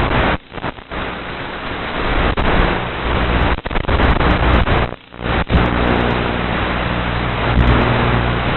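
Steady rushing noise from a 64 mm electric-ducted-fan model jet in flight, its onboard audio cutting out briefly twice near the start and once about halfway. A low, even hum runs under the rush in the second half.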